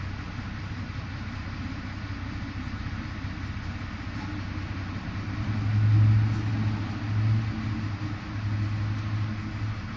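A low, steady hum that swells louder about halfway through and again near the end.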